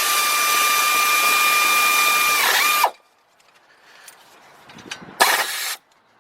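Cordless power tool running in the brake caliper bolt: a steady whir for about three seconds that dips and stops, then a second short burst about five seconds in.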